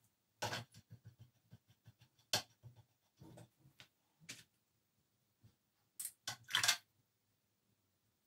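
Paintbrush working at a watercolour palette and water pot: a string of short scrapes and taps, with a tight cluster of three about six seconds in.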